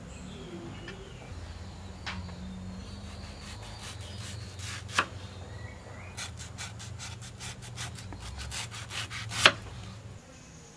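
Kitchen knife slicing a peeled mango on a wooden chopping board: a few single knocks of the blade on the board, then a quick run of cutting taps, about five a second, ending in one louder knock.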